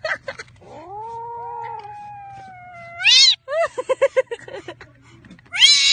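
Kitten meowing repeatedly: a long drawn-out cry, a loud high rising meow about three seconds in, a quick string of short cries, then another loud high meow near the end.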